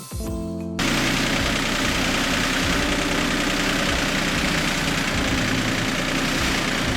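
Tractor engine running steadily, cutting in abruptly under a second in after a short bit of music.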